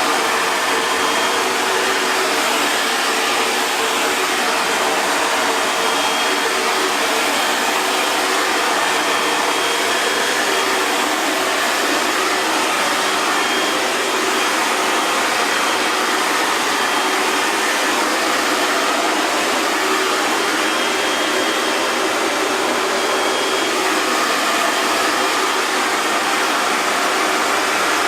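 Hair dryer running steadily: an even, unchanging rush of blown air with a faint motor hum underneath.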